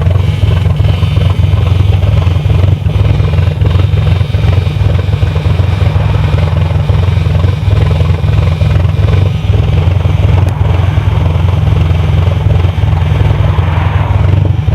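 A Mk1 Volkswagen Caddy pick-up's engine running steadily, a deep even rumble with no change in engine speed.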